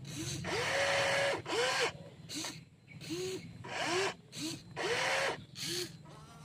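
Small electric motors of a WLtoys 16800 RC excavator, run in about nine short bursts as the controls are worked, each whirring up and back down in pitch, over a steady low hum.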